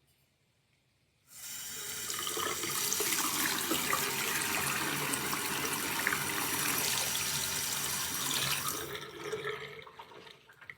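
Waterfall-spout single-lever bathroom faucet turned on about a second in, running steadily into the sink basin, then tapering off unevenly near the end as the flow is shut off.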